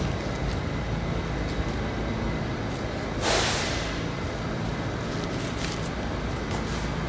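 Steady low hum of a subway train standing at the platform, with a short, sharp hiss of air from the train about three seconds in, lasting under a second.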